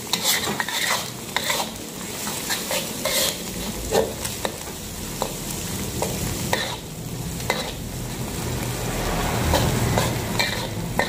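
Sausage, scrambled egg, shallots and garlic sizzling in oil in a wok, with a metal spatula scraping and tapping against the pan as it stirs them, in irregular short clicks over a steady hiss.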